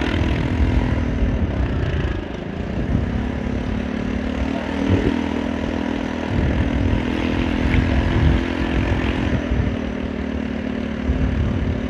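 Rusi RFi175 motorcycle engine running steadily under way, with wind buffeting the microphone. The engine note dips briefly about two seconds in, then holds steady again.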